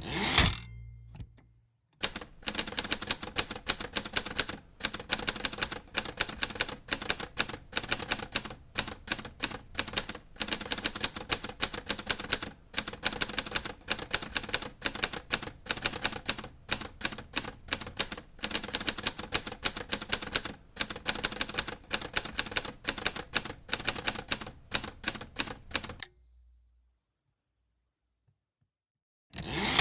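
Typewriter keys striking in quick, uneven runs of several clacks a second, with short pauses. A clatter of the carriage opens the stretch of typing, a single bell ding marks its end, and a second clatter of the carriage follows shortly before the end.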